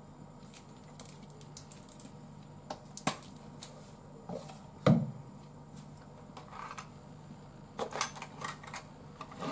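Small clicks and knocks of kitchen items being handled on a counter, with one louder thump about five seconds in and a quick run of clicks near the end. A low steady hum runs underneath.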